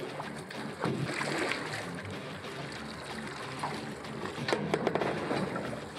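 Sea chop lapping against the hull of a drifting jet ski, with wind on the microphone and a few sharper splashes about a second in and near the end.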